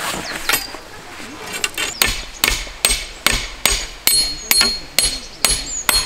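A hammer driving a peg in to anchor a camping windscreen: a few light taps, then about ten steady strikes, roughly two or three a second, starting about two seconds in. The later strikes carry a ringing note.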